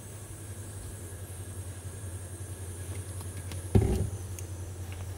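Steady low hum with a faint high hiss, broken a little under four seconds in by a single loud knock, with a few light clicks after it.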